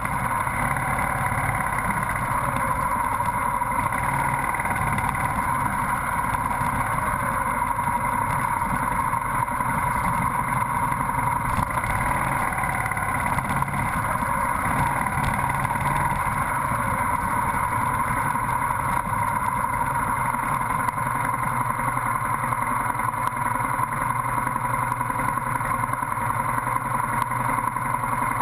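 Motorcycle engine running steadily, with constant road and wind noise.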